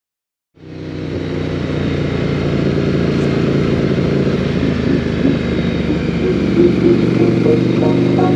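Motorcycle engine running at a steady pace while riding, heard from a handlebar-mounted camera with wind noise. It fades in from silence about half a second in, and music starts to come in near the end.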